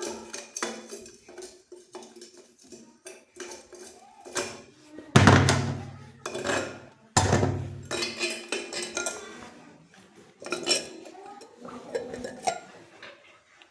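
Clinks and knocks of tools and fittings being handled while a wash basin's waste coupling is worked on, with two louder knocks about five and about seven seconds in.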